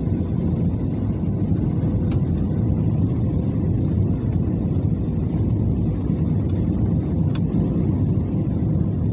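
Steady low cabin roar of a jet airliner descending on approach, heard from a window seat over the wing: engine and airflow noise. A few faint ticks come through, about two seconds in and again near seven seconds.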